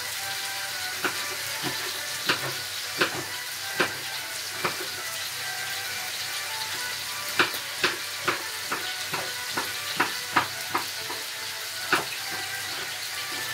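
Beef mince sizzling steadily in a frying pan, with irregular sharp taps of a knife on a wooden chopping board as peppers are diced; the taps come in loose runs, with a pause of a couple of seconds midway.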